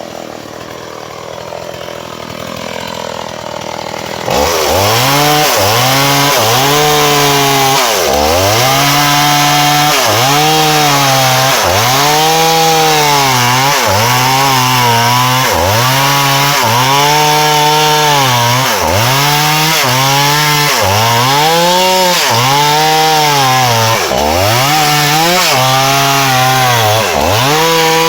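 Two-stroke chainsaw cutting through a dry fallen log. It comes in loudly about four seconds in and then runs at high revs, its engine pitch dipping and recovering every couple of seconds as the chain bites into the wood.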